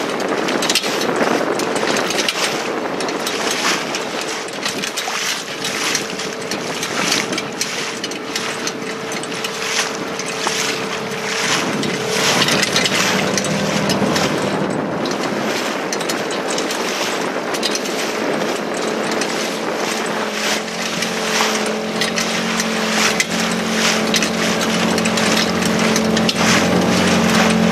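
Boat motor running steadily at trolling speed, with wind gusting on the microphone and choppy water against the hull; a deeper engine hum comes in about twenty seconds in.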